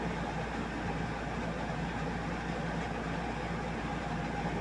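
Steady background hum with a hiss over it, even and unchanging, with no distinct events.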